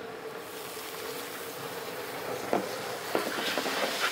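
Onions frying in hot oil in a large cooking pot sizzle, and the sizzle swells about half a second in as ginger-garlic paste goes in. A steel ladle clanks against the pot a couple of times.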